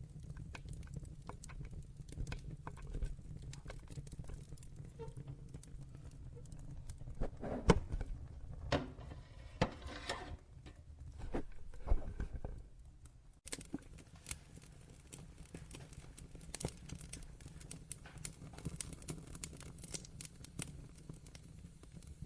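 Wood fire in a fireplace crackling and popping over a steady low rumble of flame, with a busier run of louder pops in the middle.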